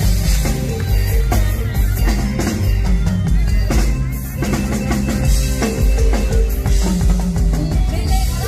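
Live band playing an instrumental passage with no vocal: a drum kit keeps a steady beat with kick, snare and rimshots over a heavy bass line.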